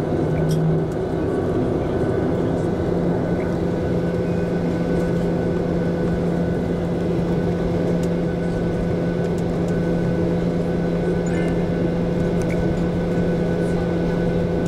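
Boeing 737-800's CFM56 turbofan engines at taxi power, heard from inside the passenger cabin: a steady hum of several held tones over an even rush. The lowest tone steps up slightly about a second in.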